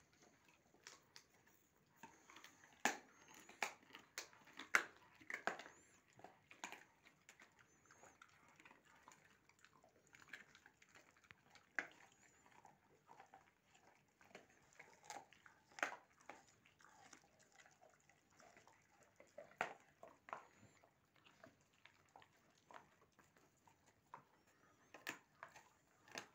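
Puppies gnawing raw meaty bones: irregular crunching and sharp teeth clicks, with a few louder cracks scattered through.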